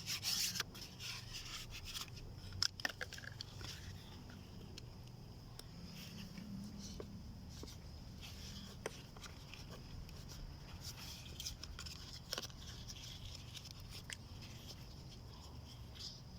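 Faint clicks, scrapes and rustles from handling plastic drip-irrigation tubing and a dripper fitting, busiest in the first few seconds, over a low steady background.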